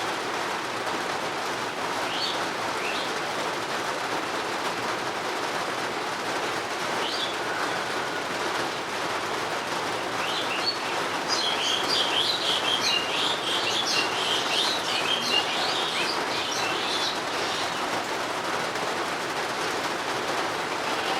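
Steady rain hiss with birds chirping over it: a few single chirps early, then a dense spell of rapid, high twittering in the middle that fades out again.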